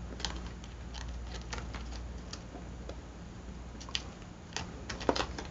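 Paper cut-outs being handled and tucked into place on a collage page: light, irregular rustles and crinkling clicks, over a steady low hum.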